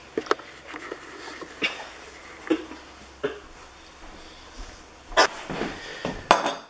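Dishes being handled: a few short clinks and knocks of a fork against a ceramic plate, then a louder clatter near the end as the plate is set down on a wooden table.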